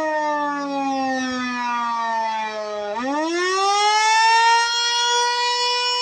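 Darley Champion electromechanical siren winding down, its pitch falling for about three seconds, then spinning back up in a quick rising sweep that levels off into a steady high tone.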